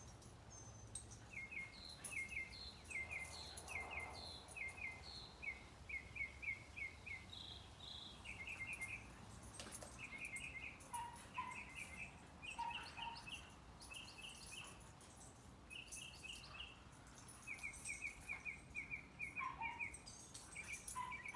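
Small birds chirping: many short, quick chirps repeated in runs, with a few lower notes mixed in, over a faint steady background.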